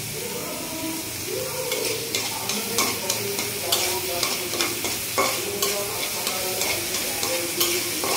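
Sliced onions sizzling in oil in a well-used karahi, stirred with a metal spatula whose strokes scrape and tap against the pan over and over.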